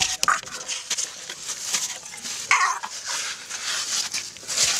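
Baby elephant giving two short high squeaks, a brief one just after the start and a louder one about halfway through, over close rustling and scraping as it brushes against the camera.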